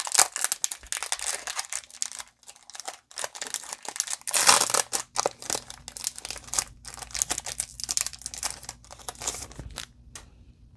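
Foil wrapper of a Pokémon TCG booster pack crinkling and tearing as it is opened by hand: a dense run of sharp crackles, loudest about four and a half seconds in, dying away near the end.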